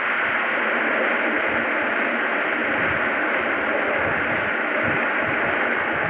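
Wind rushing over a phone's microphone, a steady hiss with irregular low buffeting thumps.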